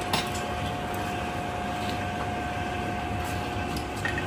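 Steady hum and hiss of running workshop machinery with a thin steady whine that fades out near the end, and a light metallic click just after the start.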